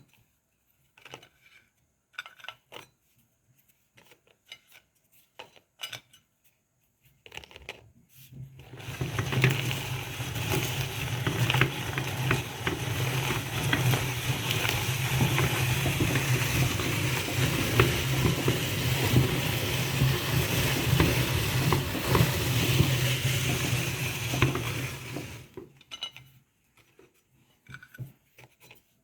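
Meat grinder grinding Golden Oreo cookies, with a steady low hum under dense crunching and crackling. It starts about eight seconds in and stops abruptly some seventeen seconds later. Scattered light clicks and clatters come before and after it.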